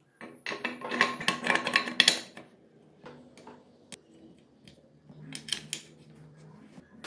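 Steel gearshift parts of a Honda CBR250 MC22 four-cylinder engine clinking and knocking against each other and the aluminium crankcase as they are handled and fitted: a busy run of metallic clicks in the first couple of seconds, then a few lighter clicks about five seconds in.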